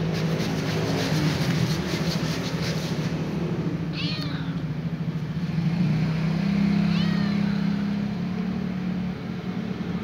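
Kitten meowing twice, short calls about four and seven seconds in, over a steady low mechanical hum.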